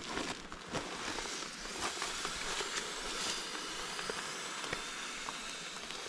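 A sleeping pad being blown up by mouth: breaths pushed into its valve, heard as hissing air over the steady rush of a small waterfall.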